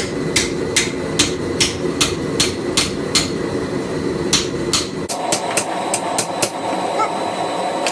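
Blacksmith's hammer blows cutting the arm of a railroad-spike cross on a chisel, struck steadily about two and a half times a second, then after a short pause a quicker run of lighter blows. A steady background noise runs underneath.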